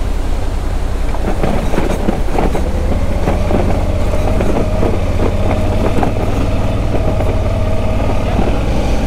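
Adventure motorcycle engine running at low speed over a muddy, washed-out gravel road, with tyres crunching and stones knocking throughout. A steady whine joins it about two and a half seconds in.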